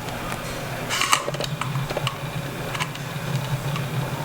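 Light clicks and taps of small tools and iPhone parts being handled during disassembly, a few scattered knocks with the loudest about a second in, over a steady low hum.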